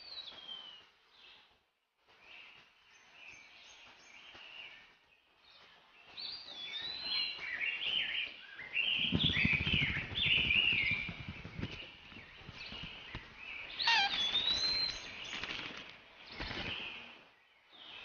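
Cartoon birds chirping and tweeting: short rising and falling calls, sparse at first and growing busier about six seconds in, with a low flutter of wings around the middle.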